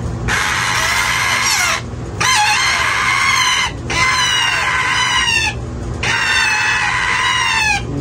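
Hand-fed Indian ringneck parakeet chicks screeching loud, harsh food-begging calls. The calls come in four long stretches with short breaks between them, over a steady low hum.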